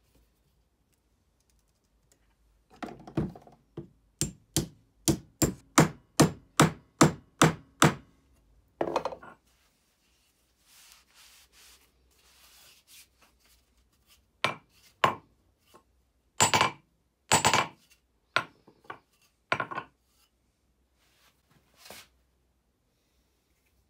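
Hammer blows on wood: a steady run of about ten strikes, roughly two and a half a second, then a pause with faint scraping and a string of irregular single knocks.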